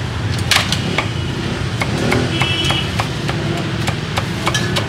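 Cleaver chopping crispy-skinned roast pork: a string of sharp, irregular chops, over a steady rumble of street traffic.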